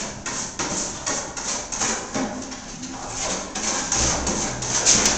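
Trowel scraping texture compound across a wall surface in quick, short strokes, two to three a second.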